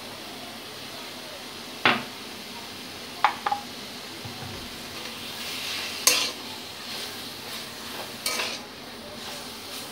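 A flat metal spatula stirring a drying mash of banana flower and potato in a metal kadai, with a faint steady sizzle. The spatula strikes the pan with about six sharp clinks, two of them close together.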